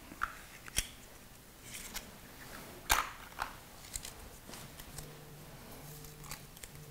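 Small handling sounds: a series of sharp clicks and light rustles, the loudest click about three seconds in, as a plastic draw ball is twisted open and the paper slip inside is taken out. A faint low hum comes in about five seconds in.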